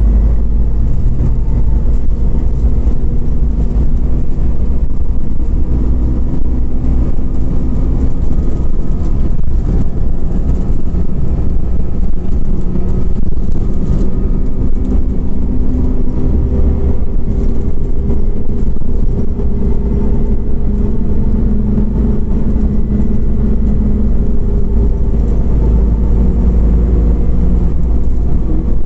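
Scania Omnicity CNG city bus driving, heard from inside the cabin: a steady low rumble of engine and road noise, with the engine note slowly rising and falling as the bus changes speed.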